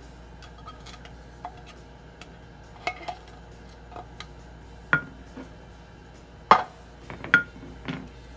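A kitchen utensil clinking, knocking and scraping against metal cookware in scattered light clicks, with two louder knocks about six and a half and seven and a half seconds in, the second ringing briefly.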